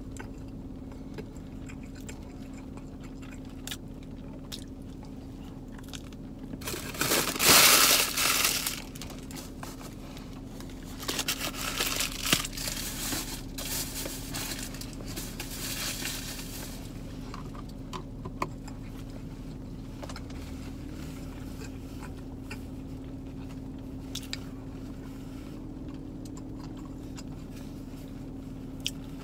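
Paper food wrapper rustling and crumpling in the hands, with crunchy chewing. The loudest bout of rustling comes about seven seconds in and a longer, softer one follows a few seconds later, over a steady hum.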